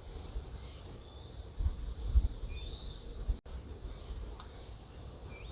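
Brown creeper song: short phrases of high, thin notes with a jumbled ending, heard at the start, again about two and a half seconds in, and once more near the end, over a low background rumble.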